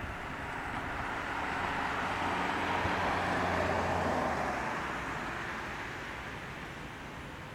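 A road vehicle passing by: engine and tyre noise swells to a peak about three to four seconds in, then fades away.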